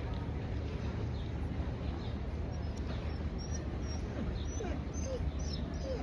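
Small birds chirping, short high calls coming more often in the second half, over a steady low background rumble.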